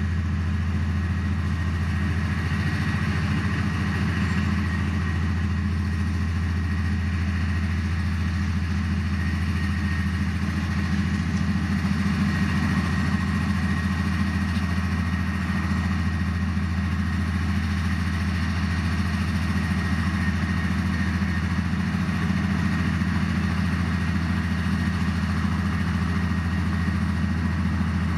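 Heavy diesel earthmoving machinery running steadily, with a low engine note and a thin high whine above it, swelling slightly a few times.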